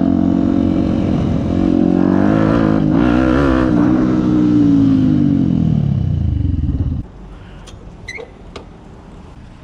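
Yamaha WR 125X's single-cylinder four-stroke engine running through a BlackWidow aftermarket exhaust, revved in a few quick blips about two to four seconds in. The revs then fall away slowly and the engine sound cuts off suddenly about seven seconds in, leaving a few faint clicks.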